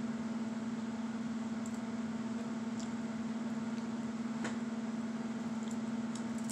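A steady low hum runs throughout. Over it, a few faint crunches come as a mouthful of crisp toasted bread is bitten and chewed.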